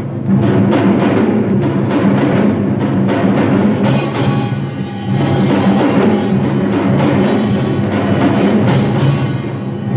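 Samulnori ensemble playing: Korean percussion with small gong, large gong, hourglass drum and barrel drum struck in a dense, continuous rhythm, easing briefly about five seconds in.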